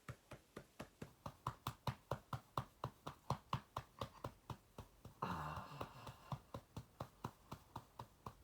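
An infant making rapid, regular clicking noises with his mouth, about four to five clicks a second, with a breathy sigh-like vocal sound about five seconds in.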